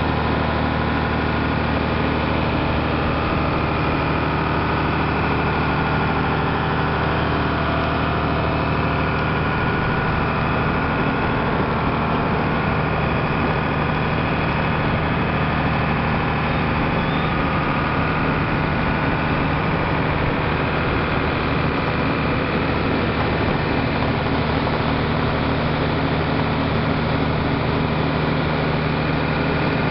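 Motor launch's engine running steadily under way, a constant low drone, with the rush of water from the boat's wake.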